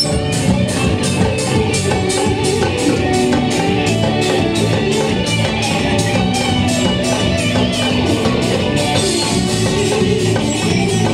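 Live carnival band playing axé music: electric guitar and drums with an even high percussion tick about three to four times a second.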